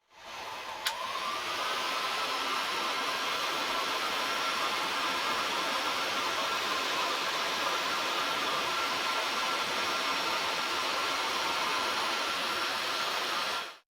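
Electric heat gun switched on, its fan spinning up over the first second and then blowing steadily with a whine while it shrinks heat-shrink tubing onto a connector; a single click about a second in, and it is switched off near the end.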